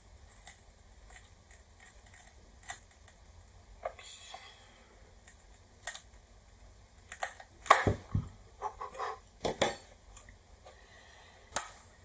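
A thin metal pick prying and scraping at the glued seam of an Apple 150 W power adapter's plastic case: scattered light clicks, then a cluster of louder cracks and snaps about two-thirds through as the seam gives way and the metal-shielded insides come loose, with one more sharp click near the end.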